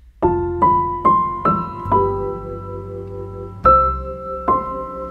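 Background piano music: a slow melody of single notes, each struck and left to ring, over a held low bass tone. The notes come about every half second at first, then after a pause.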